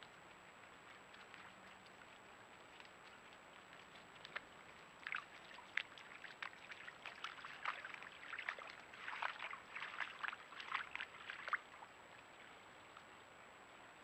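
White-tailed deer hooves splashing in a shallow muddy puddle as the deer wade through it. A run of quick, irregular splashes starts about four seconds in and stops a couple of seconds before the end.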